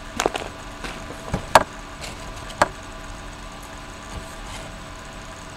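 A few sharp clicks and knocks in the first three seconds, the loudest about a second and a half in, over a steady background hum.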